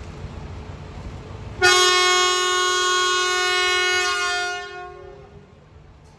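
The horn of the Railway Hobby Train, a Kiha 32 diesel railcar, sounds one long blast on departure, starting abruptly about two seconds in, holding about three seconds and fading away. A low rumble lies under the first couple of seconds.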